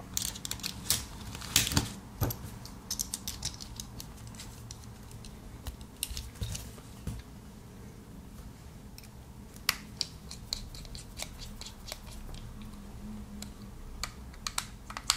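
Irregular small metallic clicks and ticks from a precision screwdriver: a bit being fitted into the handle, then a tiny screw being turned in the end of a Samsung T7 Shield SSD's casing. The clicks come thickest at the start and again about ten seconds in.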